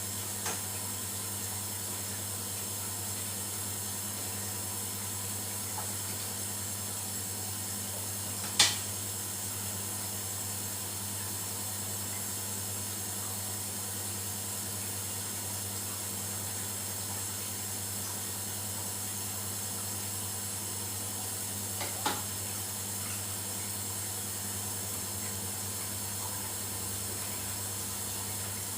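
Steady hiss with a faint low hum under it, broken by a sharp click about a third of the way through and a fainter click about three quarters through.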